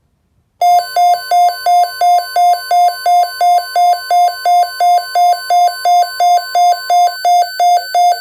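Weather alert radio's alarm going off for an incoming warning: a loud electronic beep pulsing about three times a second between two pitches, with a steady single tone, typical of the NOAA Weather Radio 1050 Hz alert tone, under it until about a second before the beeping stops.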